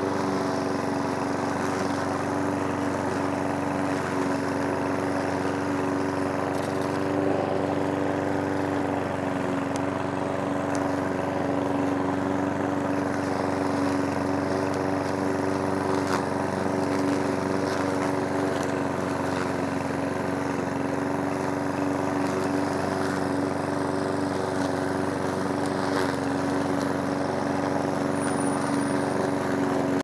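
Walk-behind petrol lawn mower's small engine running steadily at one constant speed while cutting grass, with a few faint ticks.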